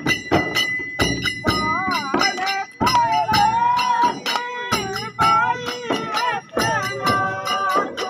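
Chang frame drums beaten by hand in a quick, steady rhythm for a Holi dhamal dance. A wavering melody rides over the drums from about a second and a half in.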